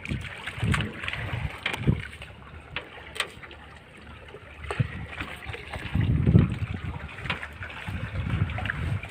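Wind buffeting the microphone in uneven gusts, loudest a little past the middle, over the wash of sea water around a small fishing boat, with a few light knocks.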